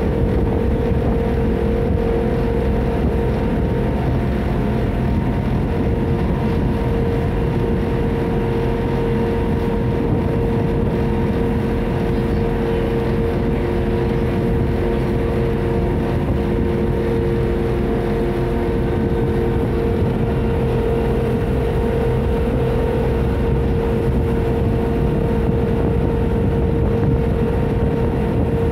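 FriendshipBoat water taxi's engine running steadily underway: a constant drone with a few held humming tones, one of which drops out about two-thirds of the way through.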